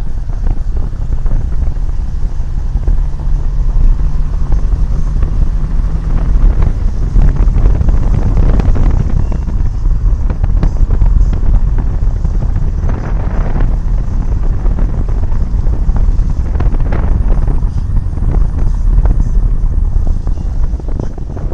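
Wind buffeting the microphone of a phone held at the window of a moving car, over the car's engine and road noise. It is a loud, steady rumble that gusts, with a low hum under it during the first few seconds.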